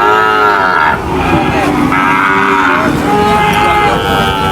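Cattle mooing: three long moos in a row, each a held call that rises and falls slightly in pitch.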